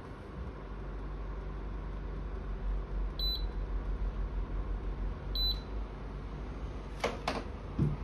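D-LET KF-25GW/HB split air conditioner's indoor unit running with a low steady hum. It gives two short, high beeps about two seconds apart as it accepts remote-control presses raising the set temperature. Two quick knocks come near the end.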